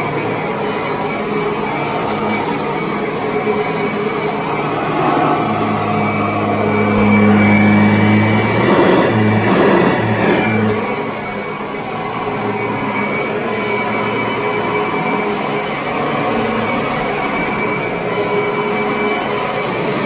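Kirby upright vacuum cleaner running as it is pushed over carpet, its motor whirring steadily. For a few seconds midway it grows louder with a deeper hum, then settles back.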